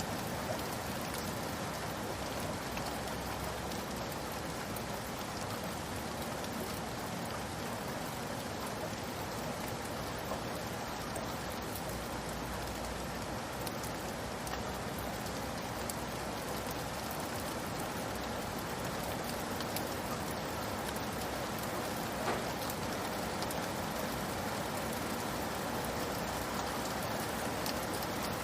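Steady rain falling: an even hiss with scattered single drops ticking, one a little louder about three-quarters of the way through.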